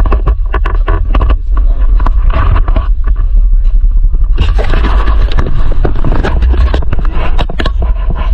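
Wind buffeting the microphone on a moving motorcycle: a constant heavy low rumble with irregular crackling gusts, the engine and road noise underneath.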